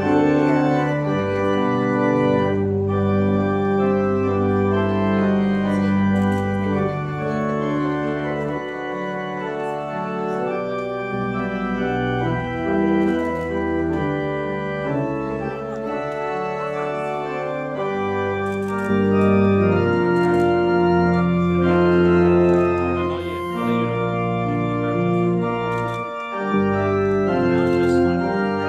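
Church organ playing a wedding processional: held chords over a deep bass, changing every few seconds.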